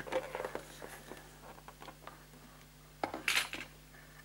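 Handling noise from the opened cassette deck being held and moved: light clicks and taps, then a short clatter about three seconds in.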